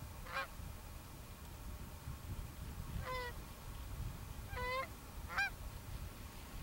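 Canada goose honks: four short single honks, one about half a second in and three more between about three and five and a half seconds, over a low wind rumble on the microphone.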